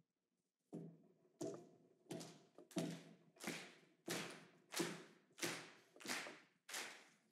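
A steady beat of thumps and claps, about one and a half a second, growing a little louder: a shanty rhythm being set up by hand before singing starts.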